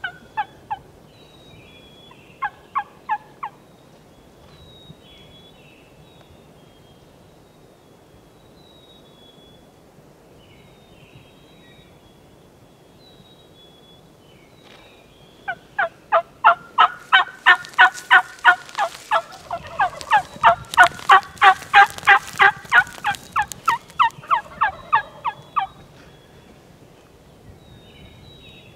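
Turkey yelping. Two short runs of three notes come near the start, then, after a lull, a long loud run of yelps at about four a second lasting some ten seconds, with faint songbird chirps behind.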